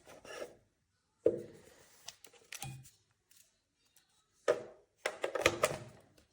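Handling noise: a series of short knocks and clatters of small hard objects, with silent gaps between, and a busier run of them near the end.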